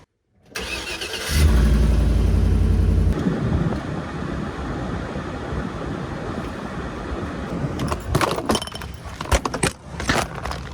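A vehicle engine cranks and starts, runs loud for about two seconds, then settles to a steady lower running sound. A few sharp clicks and knocks come near the end.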